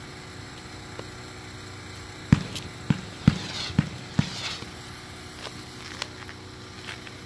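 30-shot consumer fireworks cake firing: after a short lull, five sharp bangs come about half a second apart, with a hissing crackle after the bursts, then a few fainter pops near the end.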